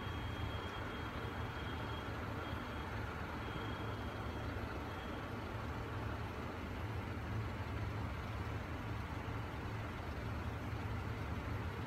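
KiHa 75 diesel railcar's engine idling with a steady low rumble.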